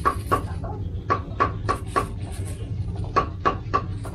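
An animal giving short, sharp calls, about three a second, over a steady low hum.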